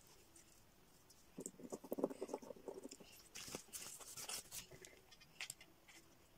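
Hands handling craft materials on a table: crackly rustling and small clicks and taps as a hot glue gun is shifted on a cardboard scrap. The rustling comes in two busy spells, about a second and a half in and again around three to four and a half seconds, with a few lone ticks near the end.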